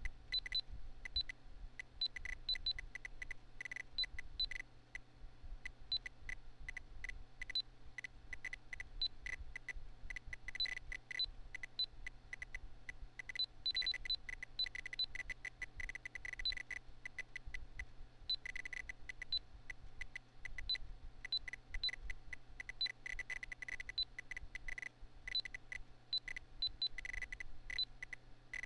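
Short electronic beeps from a PC's internal speaker, coming irregularly and sometimes in quick clusters. Most of them mark magnitude 6.0–6.9 earthquakes as the program plots them. Under them runs the low steady hum of the computer's fan.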